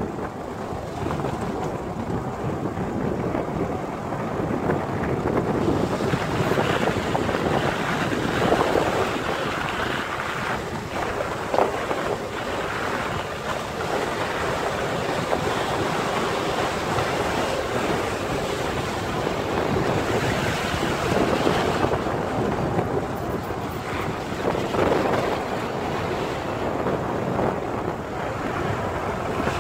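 Wind rushing over the microphone from a moving vehicle, with the vehicle's running and road noise beneath: a steady rush that swells and eases.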